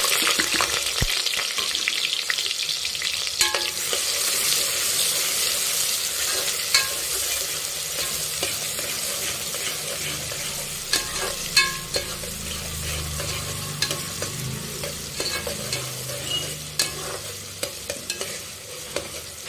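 Chopped onions sizzling in hot oil in an aluminium pressure cooker, loudest at the start and slowly easing off. A metal spoon scrapes and clinks against the pot now and then as the onions are stirred.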